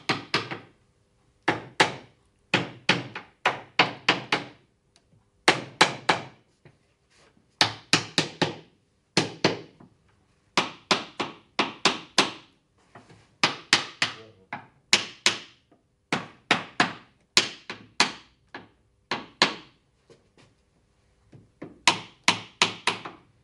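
Sharp wooden knocks in quick runs of three to six, about five a second, with short pauses between runs and a longer one near the end. They come from the mortise-and-tenon joints of a hardwood display shelf being driven home during assembly.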